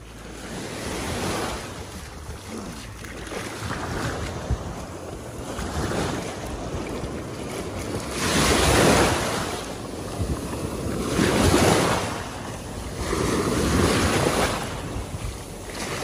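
Shallow ocean surf washing around the wader, with three louder rushing surges in the second half, and wind rumbling on the microphone.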